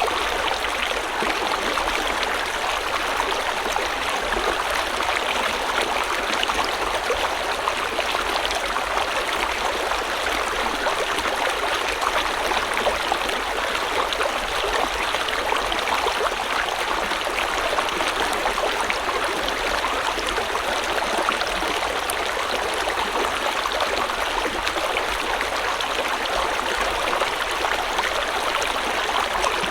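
A shallow stream or river running steadily over stones, a continuous rushing and babbling of water with small splashes and gurgles.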